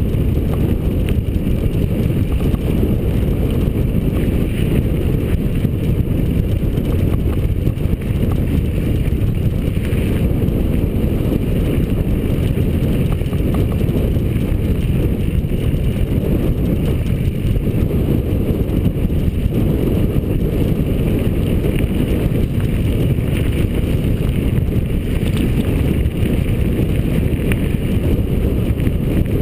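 Steady wind rumble buffeting the microphone, mixed with the tyre and trail noise of a mountain bike rolling along dirt singletrack.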